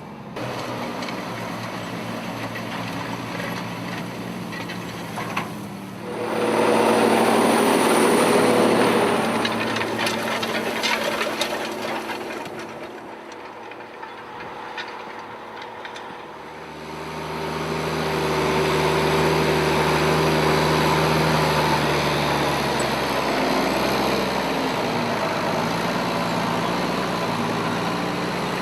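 Tractor engine running under way, growing louder about six seconds in, easing off, then picking up again with a deeper steady drone.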